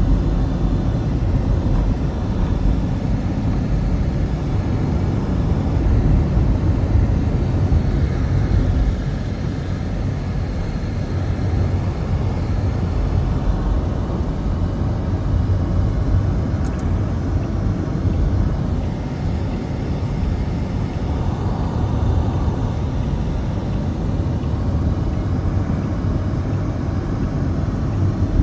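Low, steady rumble of a car driving along a road: engine and tyre noise from the moving vehicle, a little louder for the first nine seconds or so.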